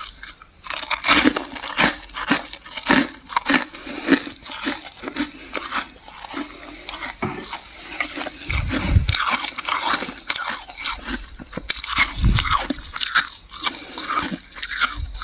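Dry, flaky freezer frost crunching as it is bitten and chewed close to the microphone: a dense run of crisp, crackly crunches, with a couple of low thuds past the middle.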